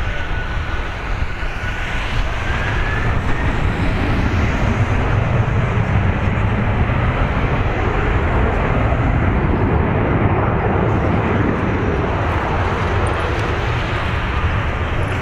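Jet engines of a Boeing 767-300ER, General Electric CF6 turbofans, running at high power on the takeoff roll. The steady roar swells a few seconds in, with a faint rising whine about two seconds in.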